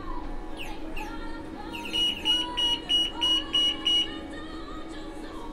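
Supermarket anti-theft security gate alarm beeping: about seven short, high, evenly spaced beeps, roughly three a second, starting about two seconds in and stopping about two seconds later, over background music.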